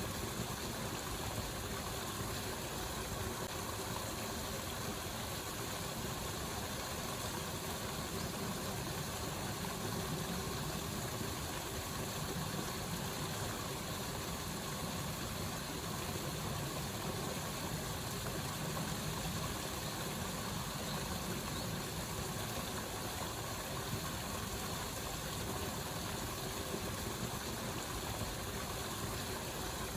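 Steady rush of a waterfall, an even unbroken roar of falling water.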